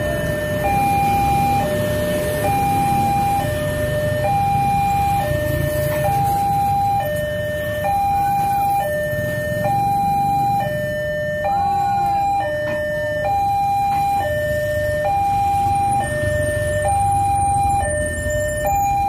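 Railway level-crossing warning alarm sounding, a two-tone electronic signal alternating steadily between a higher and a lower tone about once a second, warning of an approaching train while the barriers come down. Motorcycle engines run past underneath.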